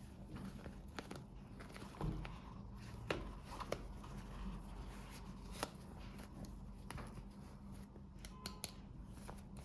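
Small plastic toy packaging being handled and opened by hand: scattered light clicks, taps and rustles, a few sharper snaps, over a faint steady hum.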